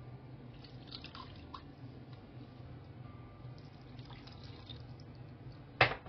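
Wet paste and water poured and scraped into a steel mixer-grinder jar, with small drips and clinks. A sharp clack near the end, the loudest sound, as the plastic lid is fitted onto the jar.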